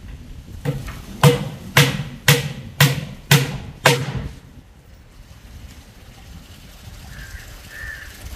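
Claw hammer nailing wooden planks: about seven sharp strikes at roughly two a second, stopping about four seconds in.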